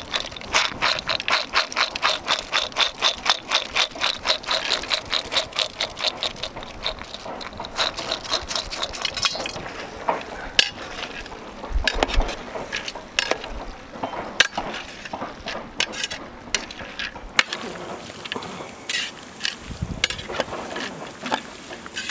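Steel utensil scraping and clattering against steel cookware in quick, even strokes of about five a second, with a metallic ring. After about nine seconds this gives way to slower, irregular knocks of a perforated steel skimmer against the side of a large steel pot as chopped tomatoes and cashews are stirred.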